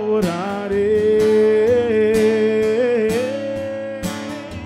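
A man singing a long, drawn-out note in a Portuguese worship song, over a strummed Gibson acoustic guitar.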